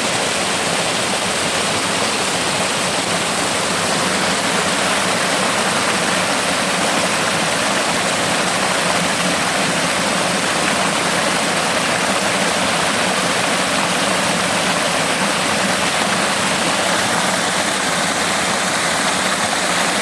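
Rushing water, such as a waterfall or a fast stream, giving a loud, steady, unbroken roar.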